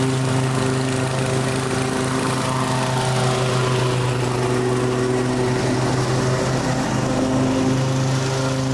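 Kohler Command Pro CV224 single-cylinder engine on a Toro Timemaster push mower running at steady speed under load while cutting very overgrown grass, with the blade discharging out the side. Its pitch holds without dropping, so the engine is not bogging down.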